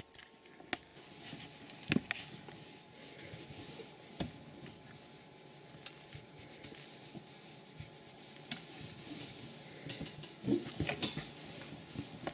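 Faint rustling of cotton fabric being handled and pressed with a clothes iron on an ironing board, with a few scattered sharp clicks and knocks, the loudest about two seconds in.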